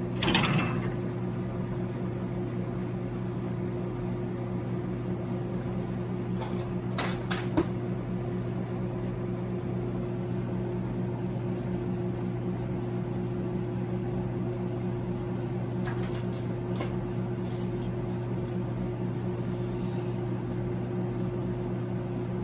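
Steady low hum of kitchen machinery, with a few brief clicks and taps as sashimi slices and garnish are set on a slate plate.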